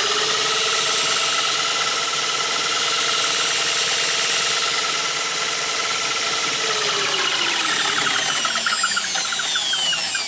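Corded electric drills running at speed, spinning a wooden spindle clamped between their chucks as a makeshift lathe: a steady motor whine. About seven seconds in the pitch sags, and falling whines follow near the end as the speed drops.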